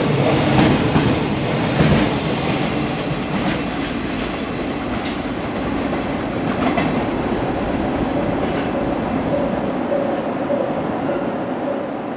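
Loaded container wagons of a freight train rolling past, wheels clattering over the rail joints. After about two seconds the clatter gives way to a steadier rumble as the train draws away.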